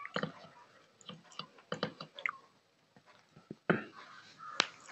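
A bare hand mixing and squeezing cooked rice on a steel plate: soft, irregular squishes, with two sharp clicks near the end.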